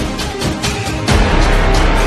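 Loud electronic theme music with heavy bass hits, one landing about a second in.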